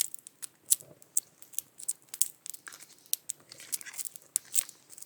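Irregular light clicks and scrapes of a spoon against a bowl as the last of a meal of chili is eaten.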